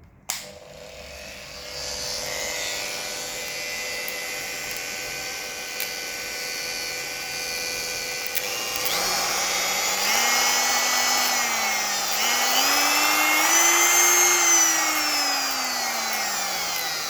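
Kress spindle motor switched on and running with a steady whine, powered through its repaired, newly printed power plug. From about halfway its pitch rises, dips, peaks and then falls away, as the running speed changes.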